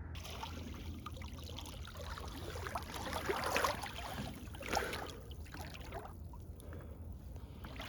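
Water sloshing and trickling around a kayak, with irregular splashes that are strongest around the middle.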